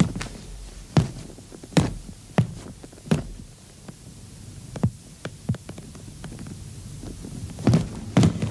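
A series of about a dozen short, soft knocks at irregular intervals over a low steady hum.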